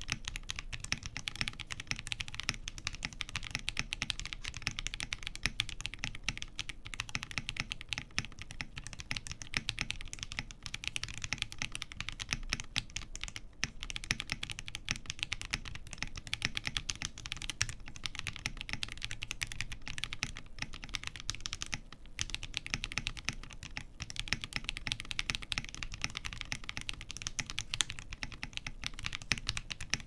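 Steady fast typing on a Ginkgo65 Pro custom mechanical keyboard with heavily lubed DangKeebs Cookies n Cream tactile switches and NicePBT keycaps, the plate on mixed silicone and poron gaskets. The key strikes sound a little muted.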